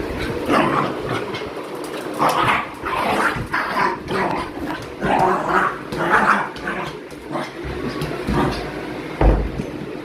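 Jack Russell terrier giving a run of short, irregular yips and barks while playing, with one thump about nine seconds in.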